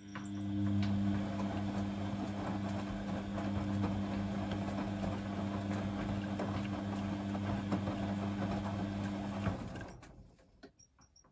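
Beko D2 8101E front-loading washing machine turning its drum during the cool-down of an Easy Care 60 wash. The motor hums steadily while the wet, soapy laundry sloshes and tumbles, then the drum stops about nine and a half seconds in. A few faint clicks follow near the end.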